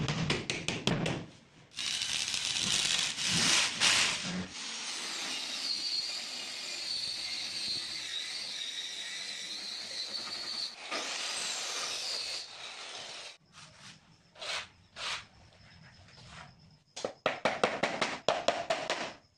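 A hammer driving nails into plywood with quick taps, then a handheld electric circular saw running and cutting through a plywood strip for about ten seconds, its motor whining steadily. Near the end come rapid hammer taps as nails are driven into a laminate-faced board.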